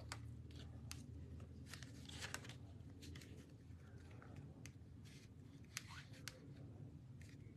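Faint rustling and light clicks of a translucent sheet being slid and shifted by hand over card stock on a stamping platform.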